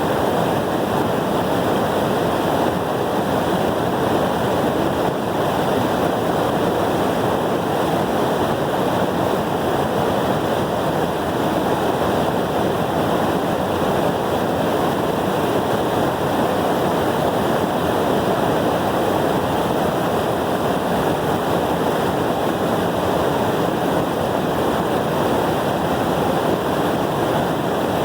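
Loud, steady rush of a waterfall's falling water, even and unbroken throughout.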